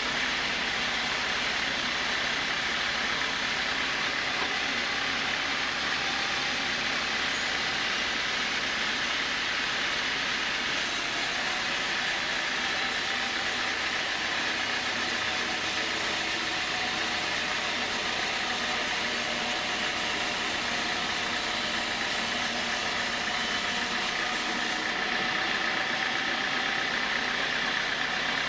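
Sawmill saw running steadily while sawing a teak log into boards, a continuous mechanical hiss; for about a quarter of a minute in the middle a brighter, higher hiss joins in, then drops away near the end.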